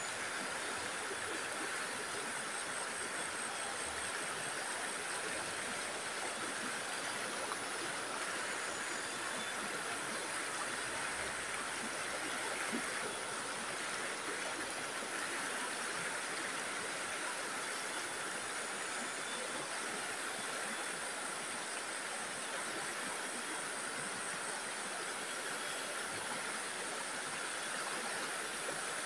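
Shallow stream running over rocks, a steady rush of water, with a thin high-pitched buzz above it.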